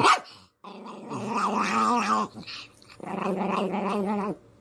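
A dog vocalizing in two long, wavering, growl-like calls. The first starts about half a second in, and the second about three seconds in.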